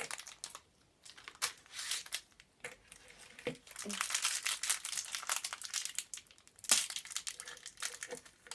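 Thin clear plastic sweet packet crinkling in a child's fingers, in several irregular bursts with small clicks between quiet gaps.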